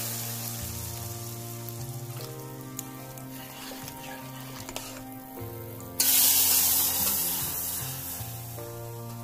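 Hot tadka oil with garlic, cumin and dried red chillies sizzling as it hits the cooked masoor-moong dal, the hiss slowly dying down. About six seconds in it flares up loudly again, then fades.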